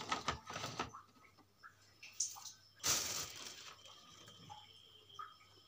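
Quiet handling noises of breadsticks being knocked and slid into place on a plastic plate, with a louder brief rustle about three seconds in.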